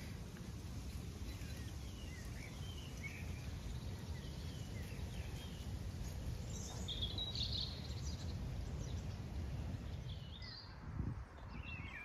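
Wind buffeting the microphone in a steady low rumble, with small wild birds singing in short chirpy phrases over it; the loudest, highest phrase comes about seven seconds in.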